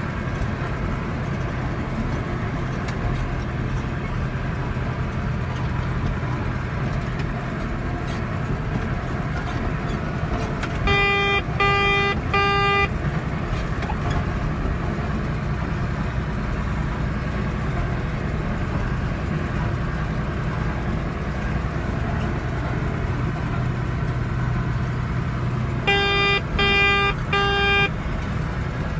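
Tractor engine running steadily with a low hum. About eleven seconds in, and again near the end, a loud tone beeps three times in quick succession.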